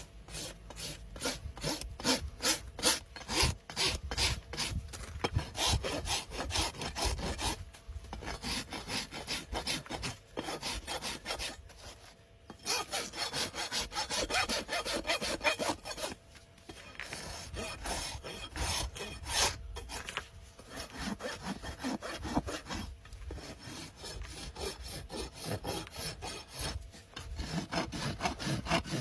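A farrier's rasp filing down an overgrown horse hoof, in runs of quick back-and-forth rasping strokes separated by short pauses.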